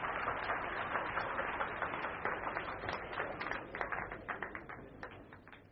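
Audience applauding: many overlapping hand claps that thin out and fade away over the last two seconds.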